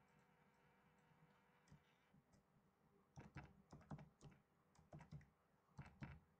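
Faint typing on a computer keyboard: a quick run of keystrokes starting about three seconds in, in a few short bursts with brief pauses between them.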